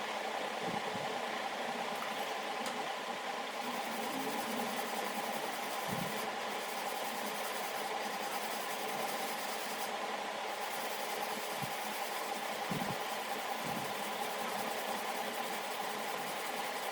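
A powered blade sharpener running steadily, with a constant whine over an abrasive grinding hiss.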